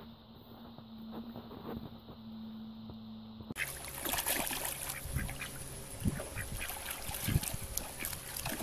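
A low steady hum, then from about three and a half seconds in a white domestic duck quacking in short calls over water splashing around a swimming dog.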